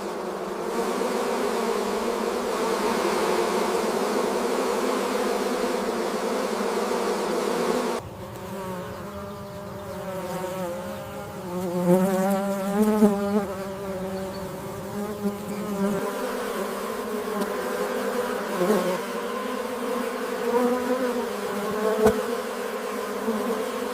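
Insects buzzing in flight: a steady wing drone that changes character abruptly twice, with a wavering pitch in the middle stretch.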